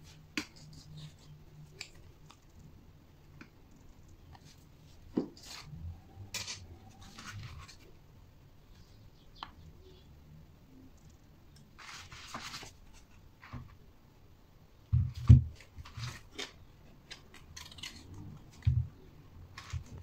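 Handling noise from a homemade microwave-transformer generator: copper wire rustling and scraping, scattered light clicks, and a few dull knocks against the table, the loudest about 15 s in.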